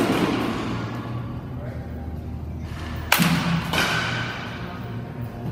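A bat hitting pitched balls in a batting cage: a sharp crack right at the start and another about three seconds in, each ringing briefly.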